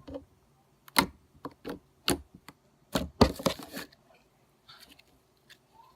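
Refrigerated slime being squeezed and worked by hand, giving sharp clicking pops as trapped air pockets burst. There are a few single clicks about a second in, then a quick run of clicks around three seconds in.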